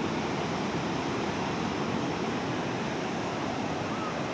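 Strong ocean surf breaking on a beach: a steady rushing wash of waves.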